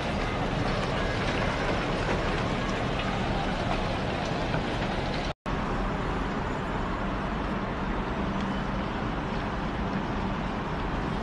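Steady city background noise, a constant rumble and hiss like traffic heard from high up, cutting out for a moment about five seconds in.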